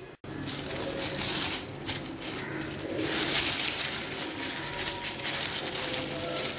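A clear plastic disposable piping bag crinkling and rustling as it is handled.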